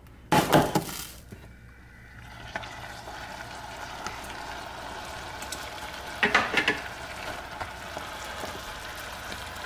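Hot cooking water being poured off a saucepan of boiled chicken breast pieces while a spatula holds the pieces back: a clatter of pan and spatula about half a second in, then a steady hissing splash, with another short scrape past the middle.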